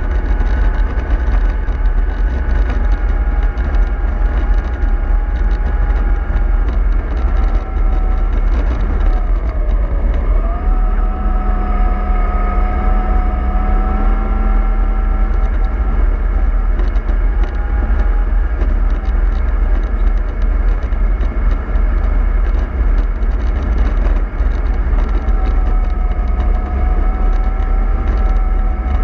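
Remote-control model bus driving, its motor whining steadily over a heavy low rumble. The whine dips in pitch about ten seconds in and then recovers.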